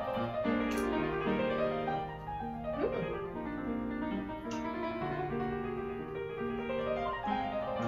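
Background piano music, a steady run of held notes.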